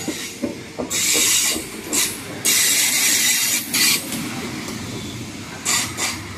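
Trenitalia regional train's coaches rolling past close by: a steady low rumble of wheels on rail, with a few knocks in the first second and several loud hissing, screeching bursts that come and go.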